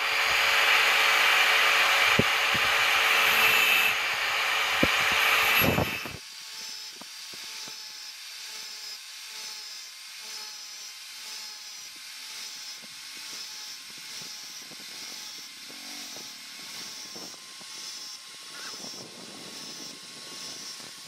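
Small electric angle grinder with a thin disc working a steel knife blade: loud and steady for about the first six seconds, then dropping suddenly to a quieter steady run with a light rasp repeating as the disc works the blade's toothed spine.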